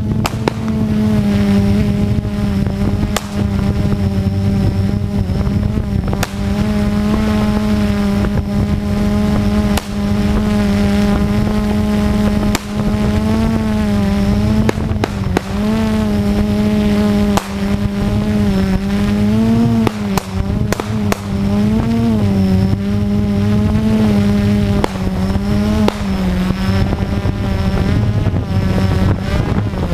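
Multirotor FPV drone's electric motors and propellers droning close to the onboard camera's microphone, a steady hum whose pitch wavers up and down as the throttle changes. Every few seconds a short sharp crack cuts through, pistol shots from the stage below.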